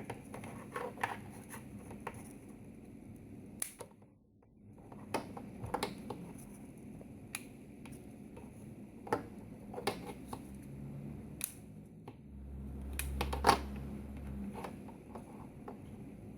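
Scattered small clicks and scrapes of hands working on a Hubsan X4 H107D micro quadcopter's motor and parts. Near the end a low rumble lasts about two seconds, with the sharpest click in the middle of it.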